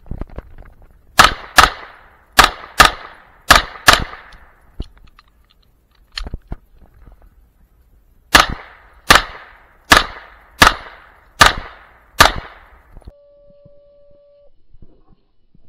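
Handgun shots on an outdoor range: three quick pairs of shots, then after a pause of about four seconds six more single shots a little under a second apart. A couple of faint clicks fall in the pause.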